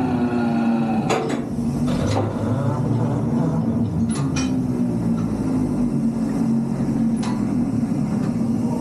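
Rail-mounted mining machine running with a steady droning hum, with several sharp metal clanks.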